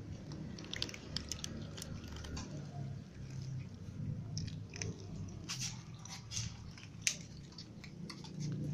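Cat crunching dry kibble close by: a run of short, crisp crunches in two bouts.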